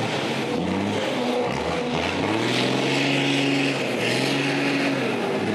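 Kamaz Dakar rally truck's diesel engine revving hard in quick rises and drops, then holding high revs for about a second midway through and again near the end.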